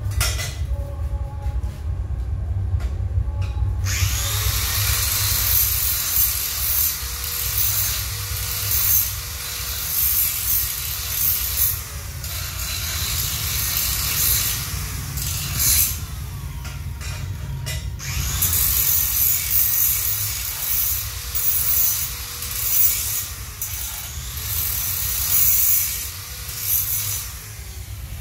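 Angle grinder grinding steel in two long passes, each lasting about ten seconds, its motor whining up at the start of each pass, with a short pause in between.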